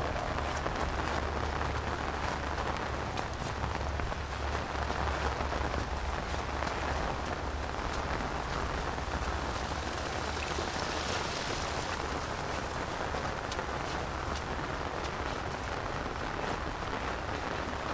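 Heavy rain falling steadily on rice paddies: an even hiss with scattered sharp drop ticks and a steady low rumble underneath.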